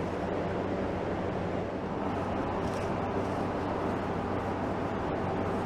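Steady low machine hum with an even rushing noise, unchanging throughout, with a few faint ticks.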